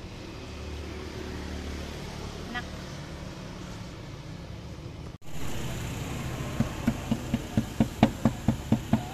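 A steady low background rumble, then after an abrupt cut a fork stabbing repeatedly into raw meat on a wooden cutting board: sharp knocks of the tines striking the board, about four a second.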